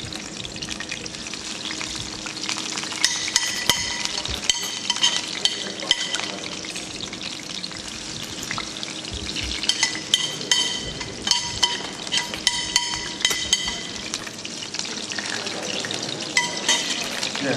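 Potato pancakes (draniki) sizzling as they shallow-fry in hot oil, with repeated clinks and scrapes of a metal spoon against the pan and bowl as more batter is spooned in.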